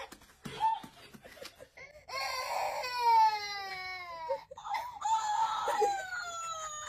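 Babies crying: short whimpers, then from about two seconds in long wailing cries that slide down in pitch.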